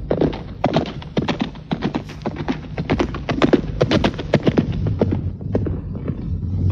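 Horse galloping: a fast, continuous run of hoofbeats, a radio-drama sound effect of a rider setting off in haste.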